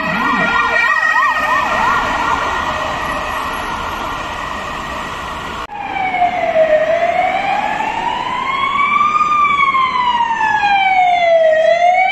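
Ambulance yelp siren warbling fast, with a rumbler's low warble beneath it that stops within the first second, then fading. About halfway through, a second siren takes over: a slow wail rising and falling once every few seconds from an approaching ambulance-service doctor car.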